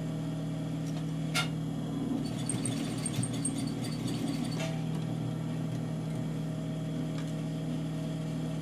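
Sewing machine motor humming steadily, with a short run of stitching in the middle and a couple of clicks.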